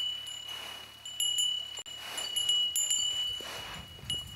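Small metal bells jingling in irregular shakes, one bell's tone ringing on steadily underneath.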